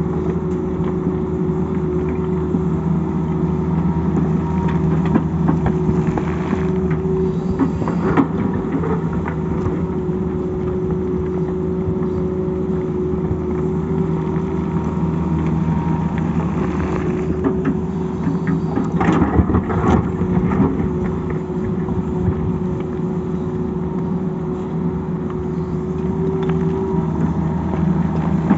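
Tata Hitachi crawler excavator's diesel engine running steadily under working load, with scattered knocks and clatter of the steel bucket on rock and loose stones, the busiest stretch about two-thirds of the way through.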